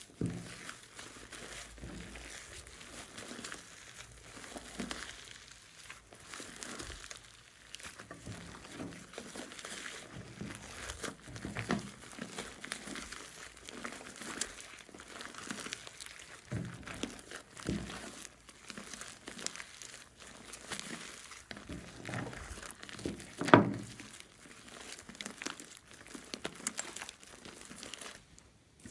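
Hands squishing and stretching slime: a continuous run of small, irregular sticky clicks and pops, with one much louder pop about 23 seconds in.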